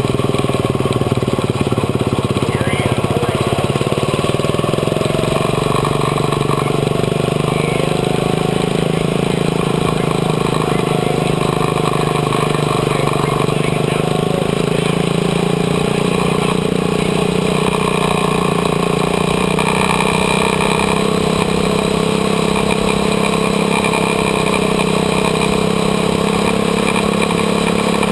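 Quarter midget race car's small engine running steadily, heard from on board, its pitch rising and falling a little as the car laps at an even pace.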